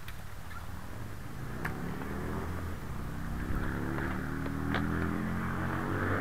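Knobby tyres of a recumbent trike rolling on a dirt and gravel trail: a tread hum builds and grows louder as the trike picks up speed, over a crunchy rolling hiss, with a couple of sharp clicks from stones or the frame.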